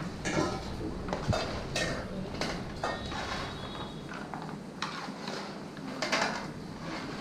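Metal cookware and utensils clattering and scraping in a run of irregular knocks.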